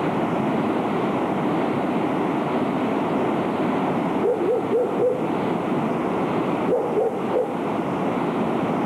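The Malom stream in flash flood, a fast, muddy torrent rushing steadily over its bed after four days of rain and a breached dam wall upstream. Two brief runs of short calls cut through, about four and about seven seconds in.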